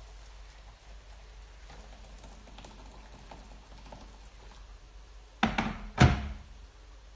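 Just-boiled water poured from an electric kettle onto rice in a plastic bowl, a faint steady splashing. A little over five seconds in, the kettle is set back down on the worktop with two loud thunks about half a second apart.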